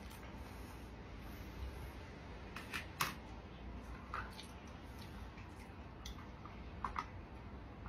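Quiet eating sounds: a few light clicks and taps from a plastic takeout container and plastic fork being handled while the food is chewed. The loudest click comes about three seconds in, and a few smaller ones follow, all over a low room hum.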